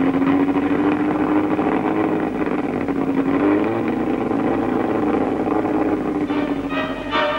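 Racing-car engine held at steady revs, rising briefly in pitch about three and a half seconds in and settling back. Orchestral music begins near the end.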